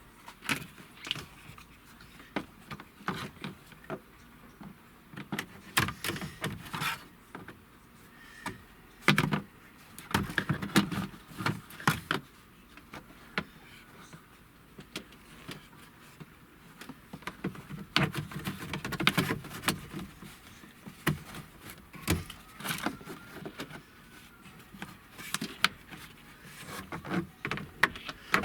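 Interior trim pieces of a pickup's dash being handled and fitted into place: irregular clicks, knocks and rustling, busiest in two stretches about a third and two thirds of the way through.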